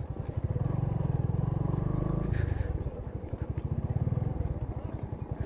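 Bajaj V15's single-cylinder engine running while riding, a steady low pulsing beat that drops a little for a moment about halfway through.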